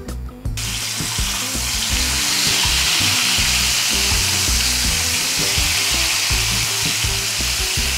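Flour-coated chicken thigh pieces deep-frying in hot oil, a dense steady sizzle that starts about half a second in.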